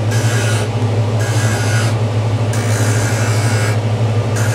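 Skate-sharpening machine's grinding wheel running with a steady motor hum, while stainless steel hockey runners are ground against it in repeated passes, each pass adding a hiss that comes and goes every second or so. The blade's toe is being blended and tapered on the wheel.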